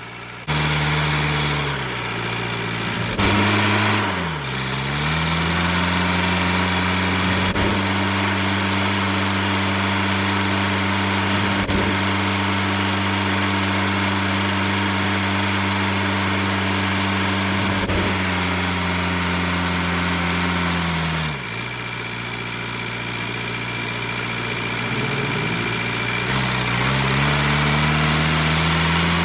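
Homelite XL-76 two-stroke chainsaw running steadily at speed. Its pitch sags and recovers a few seconds in, drops again later and climbs back near the end. A few faint knocks are heard in between.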